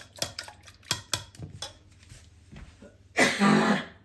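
A few light clicks of a wire whisk against a ceramic bowl, then about three seconds in a woman coughs hard, having swallowed the wrong way.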